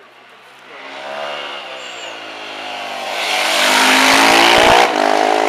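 Supermoto motorcycle engine approaching and passing close by at racing speed. The engine note climbs and grows louder as the bike nears, is loudest about four seconds in, then drops away suddenly as it passes.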